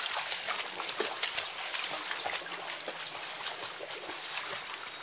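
Swimming-pool water splashing and lapping: many small splashes over a steady watery hiss, a little louder in the first second or so.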